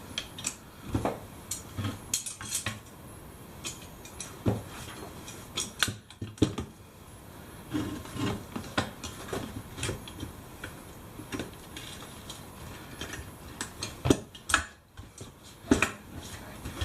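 Irregular metallic clicks, clanks and knocks of hand tyre pliers being worked around a rusty steel wheel rim while breaking the bead of an old tubeless tyre, with a sharper knock late on.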